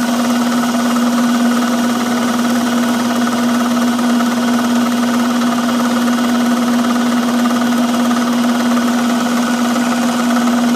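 Metalworking machine tool's electric motor running steadily after being switched back on: an even hum with one strong steady tone and a whir of the drive above it.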